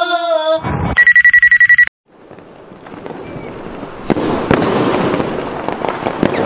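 Fireworks sound effect on an end card: crackling that swells from about two seconds in, with sharp bangs and popping about four seconds in. Before it, a birthday song being sung breaks off and a loud, rapidly pulsing electronic beep sounds for about a second.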